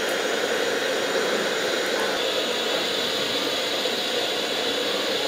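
Gas stove burner running with a steady rushing hiss under a covered pan of paneer gravy left to boil.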